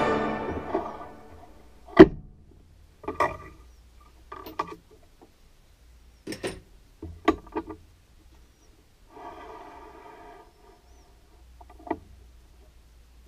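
Clanks and clicks of metal lathe tooling being handled while a drill chuck with a twist drill is fitted into the tailstock. The loudest is a sharp knock about two seconds in, followed by scattered clatters and a short scraping, rummaging stretch.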